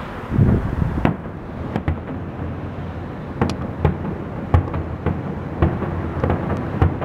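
Aerial fireworks shells bursting: low booms in the first second, then a quick string of sharp cracks, roughly two a second, through the second half.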